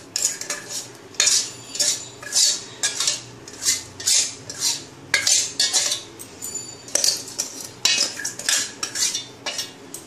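Steel spoon scraping ground rice batter out of a stainless-steel mixer-grinder jar: a rapid run of metal scrapes and clinks, two or three a second, with a short pause a little past the middle.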